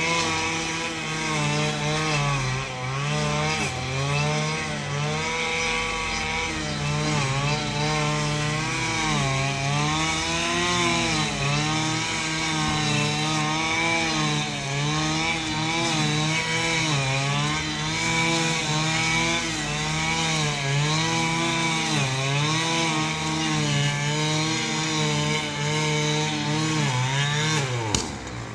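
Small two-stroke engine of a handheld cutting tool running at high revs, its pitch dipping and recovering every second or two under load, with a quick drop and rise in revs near the end.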